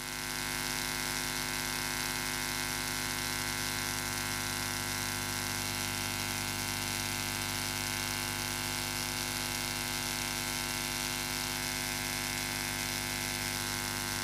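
Steady electrical hum and buzz with hiss from a live-music sound setup of keyboard, mixer and speaker, getting louder about a second in and then holding level.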